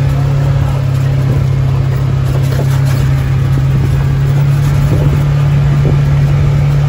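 Steady low engine drone and motion noise of a moving vehicle, heard from on board.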